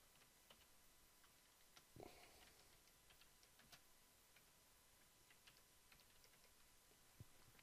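Faint, unevenly spaced keystroke clicks on a computer keyboard as a short phrase is typed, against near silence.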